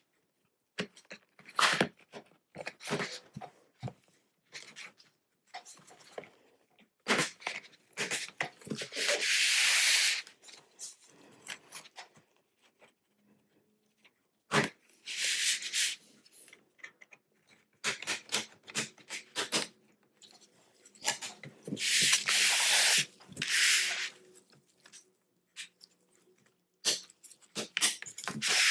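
Thin plastic pry card scraping along the seam of a laptop's plastic bottom cover, with many sharp clicks and snaps as the perimeter clips let go. Three longer scrapes of a second or two stand out among the clicks.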